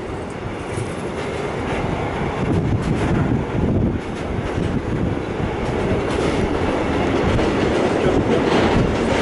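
Long intermodal freight train of container and tank-container flat wagons rolling past. Its wheels run on the rails in a steady rumble that grows louder toward the end.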